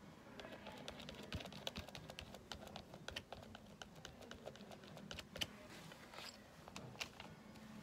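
Metal palette knife dabbing and scraping thick cold wax and oil paint onto a painting panel: a faint run of quick, irregular small taps and scrapes, several a second, with one sharper tap about five seconds in.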